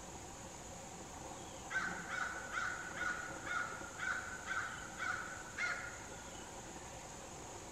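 A crow cawing: a run of about nine quick caws, roughly two a second, over a steady hum of insects.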